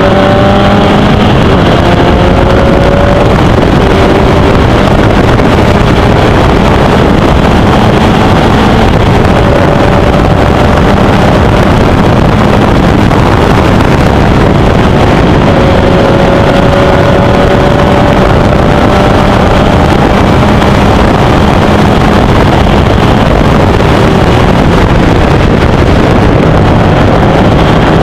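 Formula Easter single-seater race car at racing speed, heard loud from the cockpit: the engine note climbs slowly in several stretches over a dense rush of wind and road noise.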